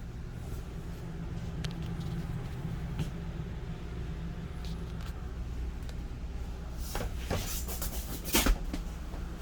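Light knocks and clunks from a trailer's fold-up bunk beds and cushions being handled, with a sharper thump about eight seconds in, over a steady low hum.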